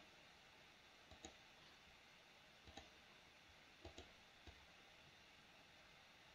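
Faint computer mouse clicks, about five short clicks spread over a few seconds against near silence.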